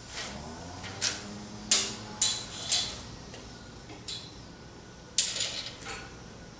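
Sharp metallic clicks and clanks, about seven at uneven intervals, from locking-plier clamps and a steel tape measure being handled against a rusty Model T steel frame rail while it is clamped and measured for squaring. A few of the knocks ring on briefly.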